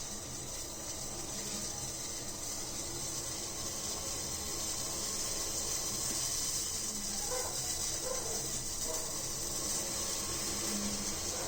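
A pot of herbal decoction (kashayam) heating on a stove: a steady high hiss that grows a little louder.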